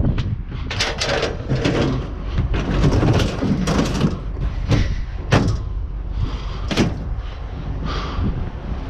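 Junk being handled and moved around in a dumpster: an irregular run of knocks, bangs and rattles, with wind rumbling on the microphone.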